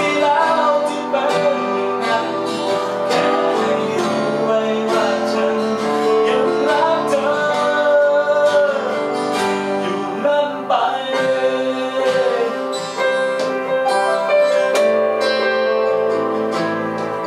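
Live acoustic song: a man singing with strummed acoustic guitar and keyboard accompaniment, recorded on a camcorder's built-in microphone.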